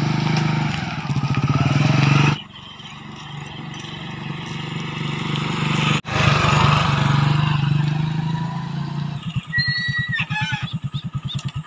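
Hero commuter motorcycle's single-cylinder engine running as the bike is ridden along, a steady low exhaust note. Near the end the engine slows to distinct, evenly spaced firing pulses.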